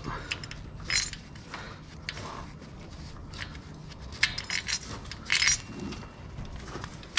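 Small metal clinks and scuffs from hands and a rag working over an LS V8's cylinder head around the valve springs, with a cluster of clinks about four seconds in and another about a second later.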